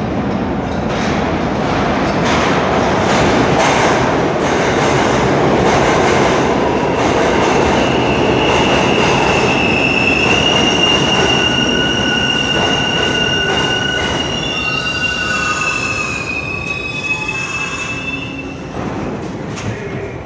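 R62A subway car running in the tunnel, its wheels clicking over the rail joints. About seven seconds in, a high wheel squeal sets in with several tones held together for roughly ten seconds. The running noise then eases off near the end.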